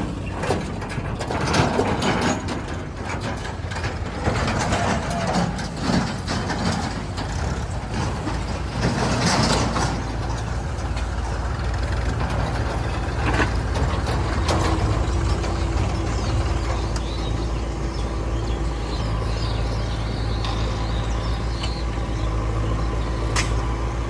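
Diesel engines of a JCB 3DX backhoe loader and a Mahindra 475 DI tractor running steadily, with scattered clanks of metal and a steady whine joining about halfway through.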